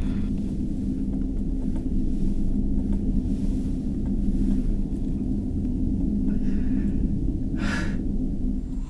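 Steady low rumbling drone with two held low pitches, with a sharp breath from the distressed man near the end.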